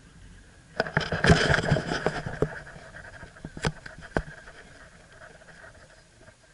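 Handling noise from a camera being picked up and moved around inside a car: a flurry of knocks and scrapes about a second in, then two sharp clicks a half-second apart.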